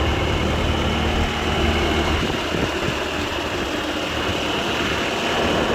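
The diesel engine of a 2018 Bobcat T590 compact track loader running steadily, with a faint steady high whine over it; the low hum is strongest for the first two seconds, then turns rougher.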